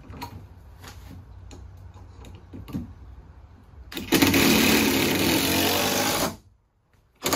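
Cordless drill driving a screw through scrap wood into a floor joist, running hard for about two seconds before stopping, with two short knocks near the end.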